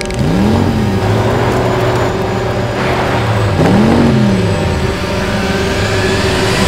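Cartoon engine sound effect revving, its pitch rising and falling twice over a loud, steady rushing noise.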